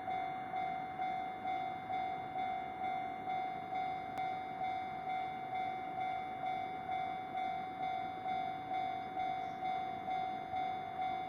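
Japanese railway level-crossing warning bell ringing: a steady electronic ding repeating about twice a second, warning of an approaching train.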